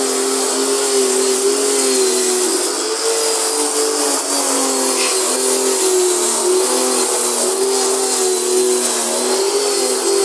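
Electric pressure washer running continuously: a motor hum that wavers in pitch as the load changes, over the steady hiss of the water spray.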